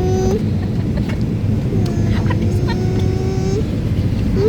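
Steady airliner cabin rumble from the engines and airflow, with a voice twice holding a long, level note over it, briefly at the start and again from about two seconds in.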